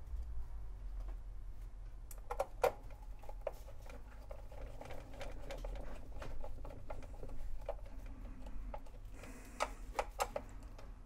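Scattered small clicks and taps from hands handling parts inside a record player's chassis while fitting a drive belt, with a cluster of sharper clicks near the end, over a faint steady low hum.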